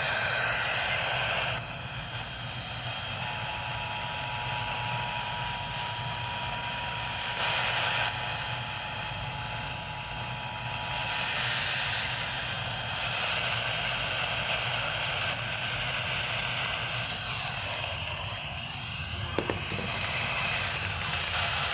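Steady radio static hiss. Starting a few seconds in, a faint two-tone EAS attention signal sounds under the hiss for about eight seconds. A short click comes near the end.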